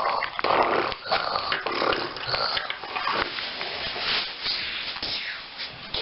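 A child making snoring and snorting noises in play, a string of irregular breathy snorts.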